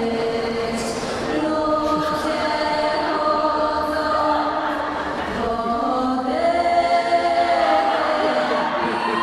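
Music with choral singing: a choir of voices holding long notes.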